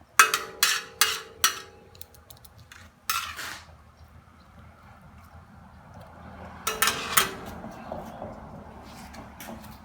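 Metal cookware clanking: four quick clanks that leave a ringing tone, a short scrape about three seconds in, then two more ringing clanks a few seconds later.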